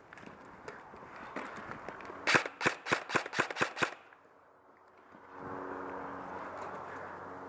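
Airsoft gun firing a quick string of about eight sharp shots, roughly five a second. A few seconds later a steady low hum sets in.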